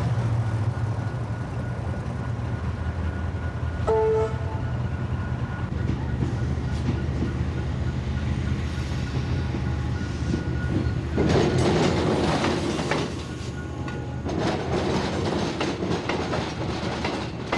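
Electric suburban train crossing a level crossing. A steady low hum gives way to two loud spells of wheel clatter near the end as the bogies run over the crossing, where the tram tracks cross the railway. A short horn note sounds about four seconds in.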